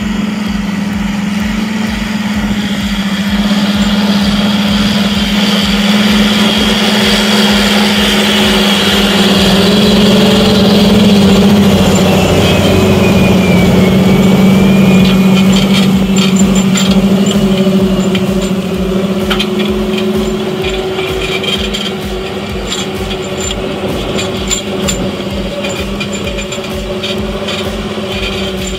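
John Deere 8430 tractor's PowerTech 9.0-litre six-cylinder turbo diesel roaring at full throttle under heavy load, pulling a subsoiler's shanks deep through the ground, with a high turbo whine. It grows louder through the middle and eases after about seventeen seconds, with scattered clicks in the second half.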